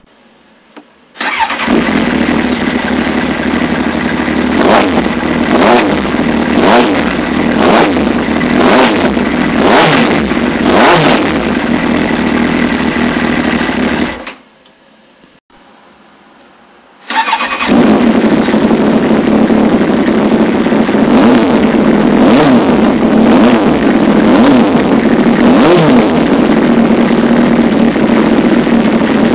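Kawasaki Ninja sport bike's engine running through an aftermarket slip-on silencer. The throttle is blipped repeatedly, so the revs rise and fall. The sound cuts out for about three seconds around halfway, then the engine is heard running again with smaller blips.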